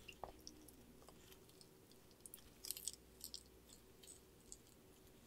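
Sulcata tortoise biting and chewing curly kale leaves: faint, crisp crunches and clicks of tearing leaf, bunched together about halfway through.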